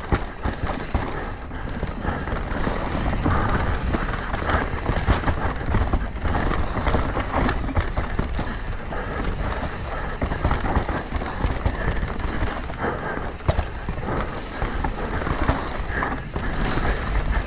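Mountain bike ridden fast down a rough trail: tyres rolling over dirt and rocks with a constant clatter of chain and frame over the bumps, and wind rumbling on the microphone.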